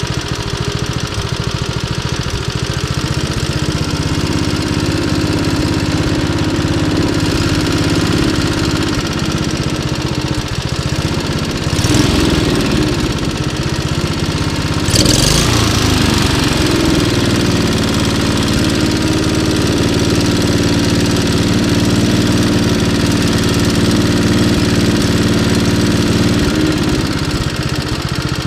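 Suzuki-engined Toro walk-behind lawn mower running steadily. About 12 and 15 seconds in there are two short bursts of noise, and the engine's note wavers and dips between them before it settles back to an even run.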